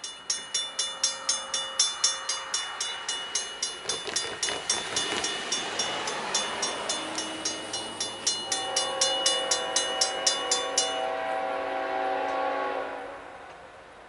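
A grade-crossing warning bell rings steadily at about three strikes a second. Partway through, the horn of the Norfolk Southern Virginian heritage locomotive sounds a long chord as the train approaches the crossing. The bell stops while the horn is still blowing, and the horn cuts off near the end.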